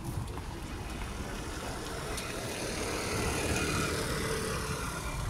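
A motor vehicle passing on the road, its engine and tyre noise swelling to a peak about four seconds in and then fading as it goes by.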